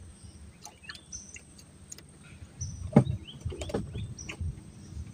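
Short, high chirps of a small bird repeating in the background, over scattered clicks. About three seconds in comes a sharp, loud knock, then a second of low rumbling handling noise close to the microphone.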